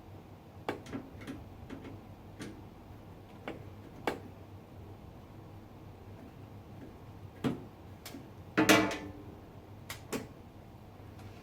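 Scattered small clicks and taps of a screwdriver and screws as the motherboard screws are taken out, with a louder rattling clatter about three-quarters of the way through.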